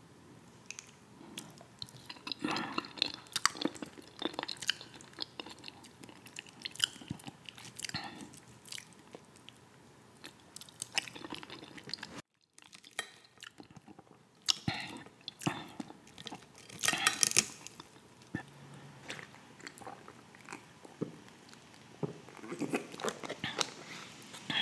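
Close-miked mouth sounds of a man chewing a meal of fish, potatoes and red cabbage with creamy dip: wet chewing, lip smacks and many small clicks, with a metal fork scraping and tapping on a glass plate between bites.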